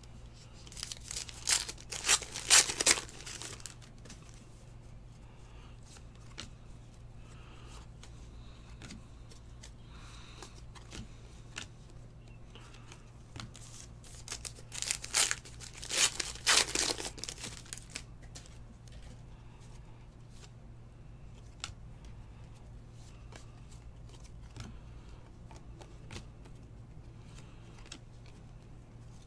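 Foil wrappers of Panini football card packs being torn open and crinkled, in two bursts of a couple of seconds each: about a second in and again about fifteen seconds in. In between and afterwards the cards are handled quietly.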